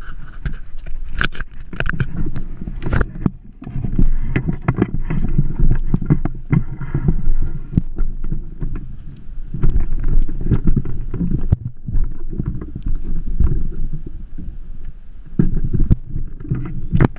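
Handling noise from an action camera being jostled: a heavy, uneven rumble with many irregular knocks and rubbing against gear.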